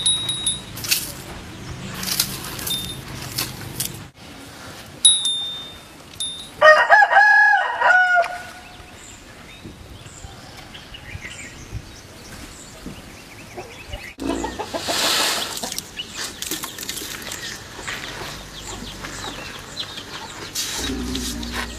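An animal's loud pitched call, about a second and a half long, roughly a third of the way in. Around it is shifting background noise that changes abruptly at about four and fourteen seconds in.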